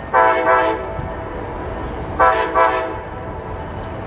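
Horn of an approaching Capitol Corridor passenger train's locomotive, sounded twice about two seconds apart, each sounding with a brief dip in the middle, over a steady low rumble.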